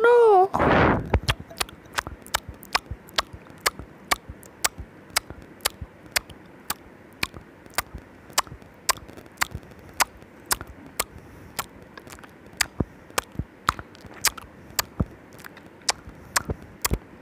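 A cat eating from a glass bowl: a long run of sharp, wet mouth clicks, about three a second. It opens with a brief loud rush of noise.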